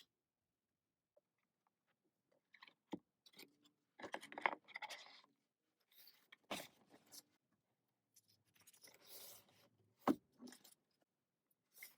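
Quiet rustling and crinkling of album packaging and inserts being handled, with a few light taps and knocks, loudest about four and ten seconds in.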